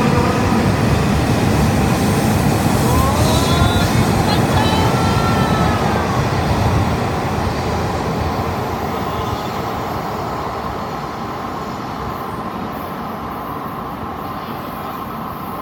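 Shinkansen train running at a station platform, with whines that glide up and down in pitch about three to six seconds in. Its noise fades steadily over the second half as the train moves away.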